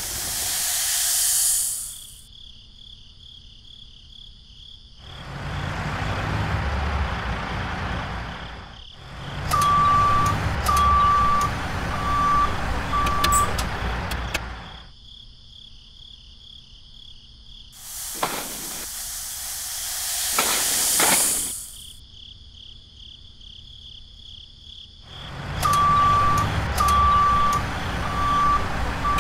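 Truck sound effects for a toy dump truck: an engine rumble with reversing beeps, four short beeps, twice. A rushing hiss of tipped sand comes at the start and again about 18 seconds in, over a steady insect chirping.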